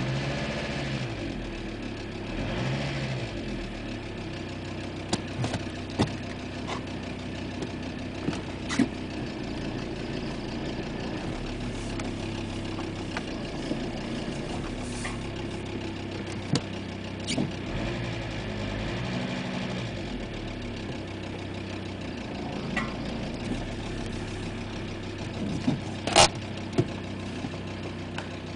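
Audi A6 2.5 TDI five-cylinder diesel idling with a ticking from the valve train. The cause was a sheared key on the crankshaft timing-belt sprocket, which left the cam advanced so that the inlet valves touched the pistons. The revs rise and fall briefly twice near the start, and sharp clicks stand out now and then, the loudest near the end.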